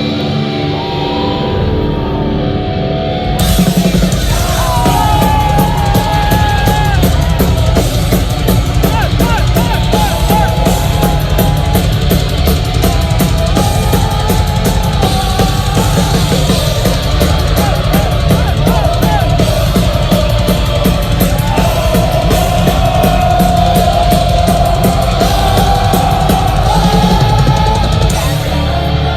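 Heavy metal band playing live. A quieter opening of held notes gives way about three seconds in to the full band, with fast, dense drumming and distorted instruments.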